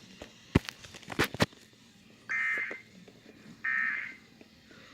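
Emergency Alert System end-of-message data bursts: short, harsh warbling digital tones repeated about every 1.3 s, marking the end of the alert broadcast. A few sharp clicks come before them in the first second and a half.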